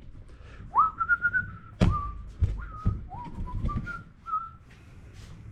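A person whistling a short tune, a string of held notes with small slides between them. A few knocks from handling parts or tools come in the middle.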